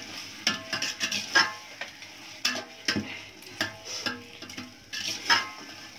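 Raw mutton pieces being added to and stirred in a large aluminium pot of frying masala: a dozen or so irregular clanks against the pot, each with a brief metallic ring, over a low sizzle.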